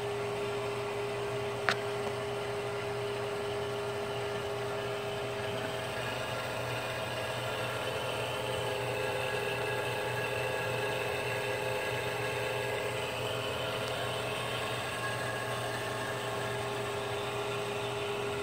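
Steady electrical hum and buzz from a neon sign transformer driving a CO2 laser tube on about 15 kV AC, the discharge arcing through the tube. A single sharp click sounds a couple of seconds in.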